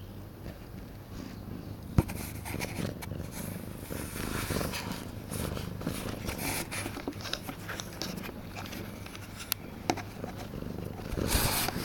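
Domestic cat purring close up, a steady low rumble, with scratchy rustles and a few sharp clicks over it; the sharpest click comes about two seconds in and a louder rustle near the end.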